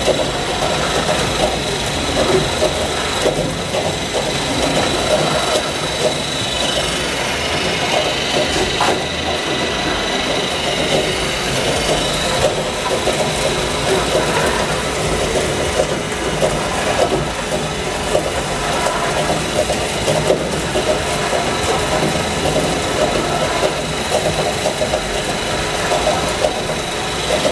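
Walnut-oil mill's heated roasting pan running: a motor-driven stirring pole and scraper turn the ground walnut meal, making a steady mechanical running noise with a faint steady high whine. This is the roasting stage of the walnut paste before pressing.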